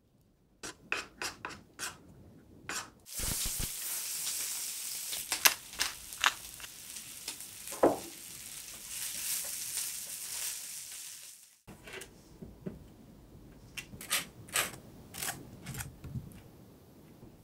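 A few light clicks of a spoon stirring in a wooden bowl. Then diced onion and bacon sizzle in a divided frying pan for about eight seconds, with a few sharp stirring clicks; the sizzle cuts off suddenly. Scattered clicks of a spoon against a ceramic baking dish follow.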